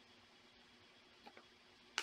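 Near-quiet room tone as a stack of trading cards is handled in the hand, with a faint tick about a second in and a short sharp click at the very end as a card is moved.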